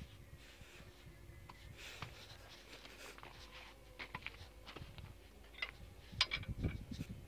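Light clicks and rubbing of hand tools being worked on a Caterpillar 3508 diesel engine, with a cluster of sharper clicks in the second half.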